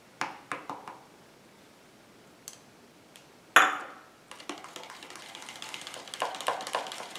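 A plastic spoon scrapes paint from a stainless steel measuring cup with a few light clicks. About three and a half seconds in, the metal cup is set down with one sharp clink. Then a small wire whisk starts stirring a paint and plaster-of-Paris mixture in a plastic cup, ticking rapidly against the sides.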